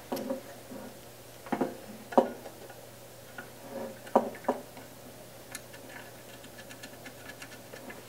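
A DVI-to-HDMI cable connector and a small SVSi encoder box being handled on a desk while the cable is plugged in. There are a handful of sharp plastic-and-metal knocks and clicks in the first five seconds, then a run of faint quick ticks.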